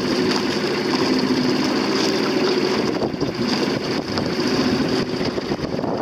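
Small motorboat engine running steadily as it tows a dinghy, its steady hum over a rush of wind and choppy water.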